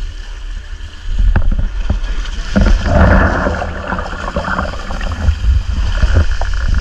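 A sea wave surging in over a rock ledge and washing around, loudest about three seconds in, then draining back off the rocks with splashing.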